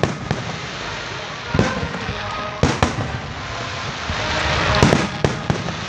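Aerial fireworks bursting: a series of sharp bangs, a cluster of them near the end, over a continuous crackle.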